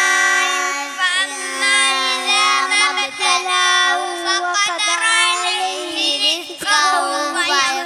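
Young boys singing together into microphones, amplified over a sound system, with long held notes that slide in pitch.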